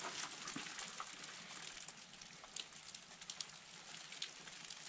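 Light rain beginning to fall: scattered raindrops ticking over a faint, steady hiss, the first drops of an approaching desert thunderstorm.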